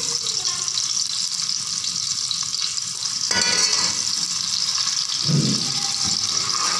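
Chopped onions sizzling in hot oil in a steel pot, the start of the tadka. A metal spoon stirs them from a few seconds in.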